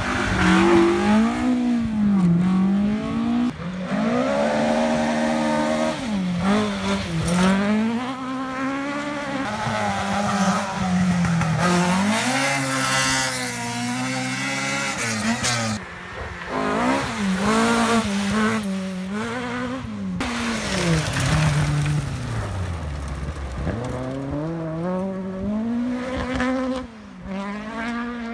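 Historic rally cars' engines revving hard on the stage, one after another, the pitch climbing and then dropping repeatedly as they change gear.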